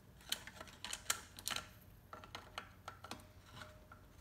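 Screwdriver working the screws out of a motorized bicycle engine's metal sprocket cover plate: a scatter of small, sharp, irregular clicks and ticks, some in quick runs.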